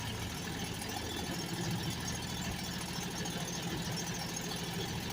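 Engine of a homebuilt experimental aircraft running at a steady speed, a low even drone with no change in pitch. The builder takes it to be running well.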